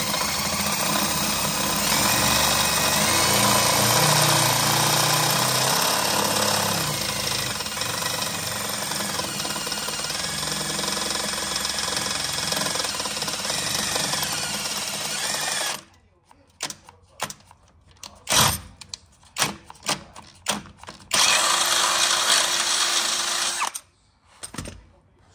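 Cordless drill-driver running in one long continuous run of about sixteen seconds, driving a bolt home into a car's splitter mounting bracket. This tightening pulls the fixing down so that it spreads and locks in. It is followed by a series of short blips and knocks, then another run of about two and a half seconds, before the tool stops.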